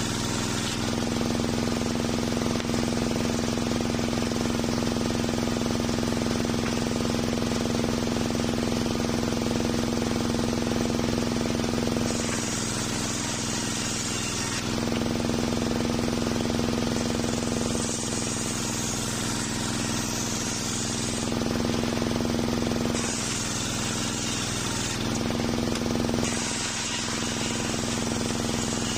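Homemade circular sawmill with its motor running steadily, the big blade spinning with a constant hum. From about twelve seconds in, the blade rips through old waru wood four times, each cut a few seconds long and adding a high rasping hiss over the hum.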